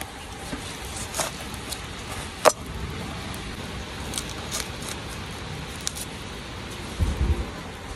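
A cleaver cutting a green bell pepper on a wooden cutting board: a few sharp knocks as the blade meets the board, the loudest about two and a half seconds in, over a steady hiss. A brief low rumble comes near the end.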